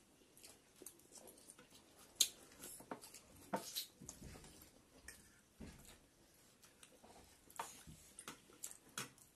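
Quiet eating sounds of chicken thukpa noodle soup: scattered clicks of spoons and forks against bowls, with soft slurping and chewing in between. The sharpest click comes about two seconds in.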